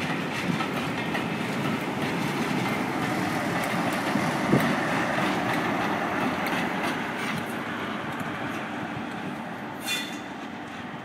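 Railway passenger coaches rolling past with a steady wheel clatter, and a sharp knock about four and a half seconds in. The sound slowly fades as the tail of the train, a trailing diesel locomotive, goes by, with a brief high squeal near the end.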